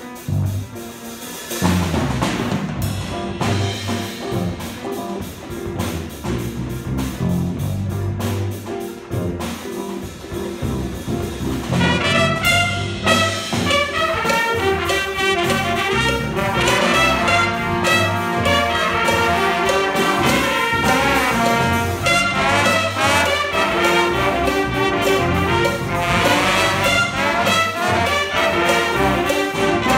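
Jazz big band playing: a groove of electric guitar, bass guitar and drum kit, joined about twelve seconds in by the full horn section of saxophones, trumpets and trombones.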